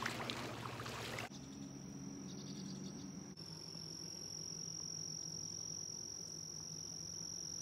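About a second of rustling, clicking noise that stops abruptly, then a steady high-pitched insect trill that goes on unbroken over a faint low hum.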